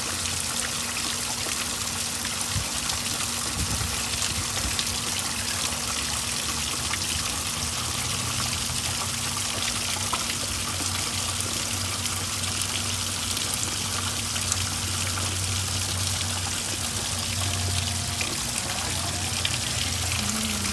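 Water from a small rock waterfall and a spout trickling and splashing steadily into a garden koi pond, with a low steady hum underneath.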